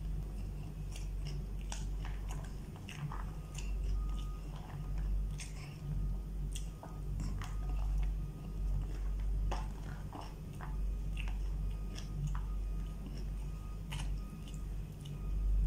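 A person chewing a mouthful of food, with many short mouth clicks scattered throughout, over a steady low hum.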